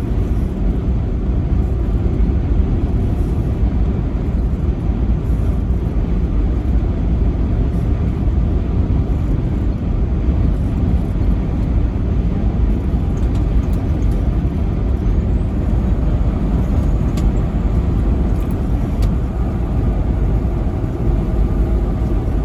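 Truck driving along the road: steady low rumble of engine and tyres, holding even throughout.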